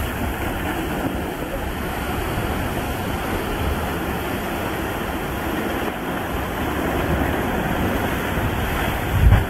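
Ocean surf surging and churning into a narrow rocky inlet, a steady rush of breaking waves and spilling water. A louder low thump comes near the end.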